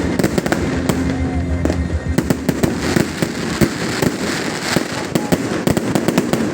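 New Year's fireworks: a dense, unbroken crackle of many firecracker and rocket bangs going off in quick, irregular succession.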